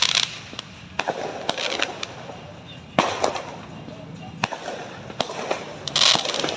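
Fireworks going off in a string of sharp bangs, irregularly spaced. The loudest come about halfway through and near the end, and several trail off in a crackling hiss.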